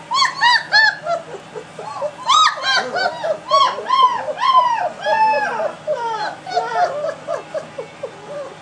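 A litter of three-week-old German Shepherd puppies whining and squealing, many short high cries rising and falling in pitch and overlapping several to the second.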